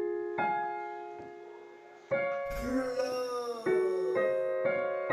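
Slow keyboard music: single piano-like notes struck a few seconds apart, each ringing and fading. A sliding, falling tone runs through the middle.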